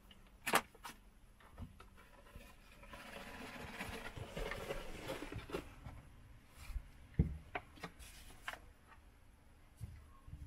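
Quiet kitchen handling sounds while food is being prepared: a few light knocks and clicks, and a soft rustling noise lasting about two seconds in the middle.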